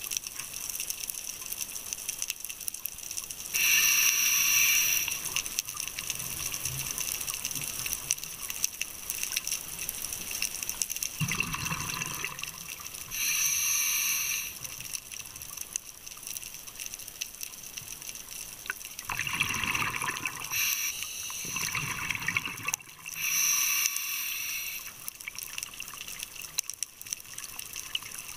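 A scuba diver breathing through a regulator underwater. A loud hiss comes about every ten seconds, three times, and between the hisses come gurgling bursts of exhaled bubbles.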